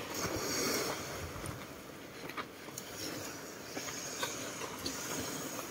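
Footsteps crunching on a gravel track, a few scattered crunches over a steady rushing noise.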